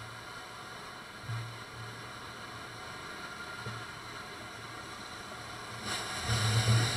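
Soviet L-class steam locomotive hissing steadily as it vents steam from its cylinders, with occasional low rumbles. The sound grows louder about six seconds in as the engine draws closer.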